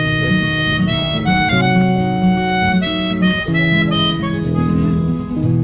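Instrumental background music: a harmonica melody of long held notes over strummed acoustic guitar.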